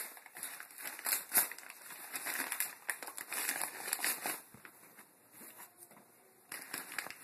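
Packaging being handled as a cardboard box is opened: irregular crinkling and rustling with small knocks, dying down for a moment shortly before the end.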